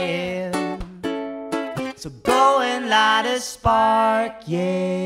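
A man and a woman singing a duet over a strummed ukulele and a nylon-string acoustic guitar. About four and a half seconds in, they settle onto one long held note.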